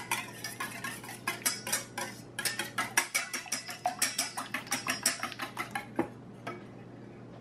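Wire balloon whisk beating raw eggs in a stainless steel bowl, the wires clicking against the metal sides about four or five times a second. The whisking stops about five seconds in, followed by a couple of single taps.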